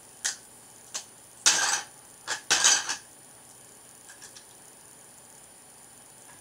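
Plastic Lego bricks clicking and clattering as they are handled and pressed together. Two sharp clicks come first, then two longer rattling clatters about a second and a half and two and a half seconds in, then a few faint ticks.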